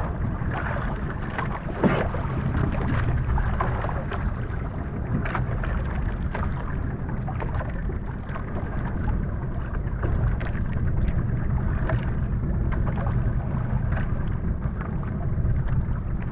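Steady low rumble of wind and water around a small wooden outrigger fishing boat at sea, with scattered light knocks and clicks.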